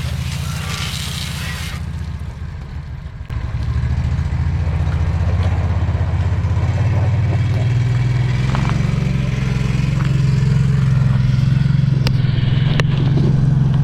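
Engine running steadily beside a hissing water spray that stops about two seconds in; the engine then runs louder and a little higher in pitch.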